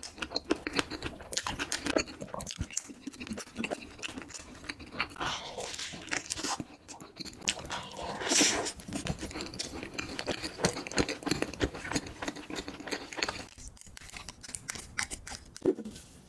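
Close-miked eating sounds: chewing and wet mouth clicks from someone eating soft strawberry cream cake, with irregular small clicks and a louder bite about eight seconds in.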